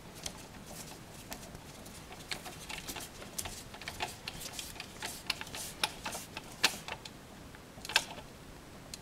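Irregular small clicks and ticks of a screwdriver working the ground screw on a new single-pole light switch as the wires are handled, with two sharper clicks near the end.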